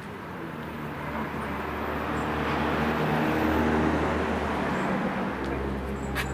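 A car driving past on the street, its noise building to a peak about four seconds in and then fading away. There is a single sharp click just before the end.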